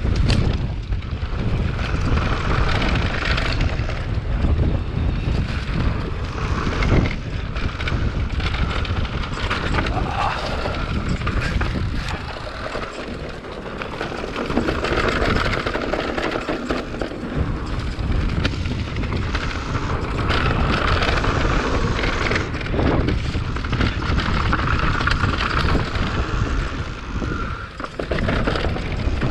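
Riding noise from an Orbea Wild FS electric mountain bike on dry dirt singletrack: wind rushing over the camera microphone, tyres rolling on dirt and the bike rattling over bumps. The noise is continuous and eases off briefly twice.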